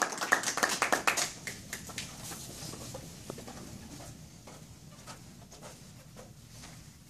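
A small audience applauding, the clapping thinning out and stopping within the first two seconds or so, followed by a few faint scattered clicks and shuffles in a quiet room.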